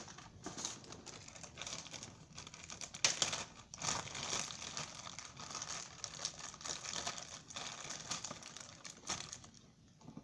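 Slime being squished and worked by hand, a dense run of wet crackling and popping clicks, loudest about three seconds in and dying down near the end.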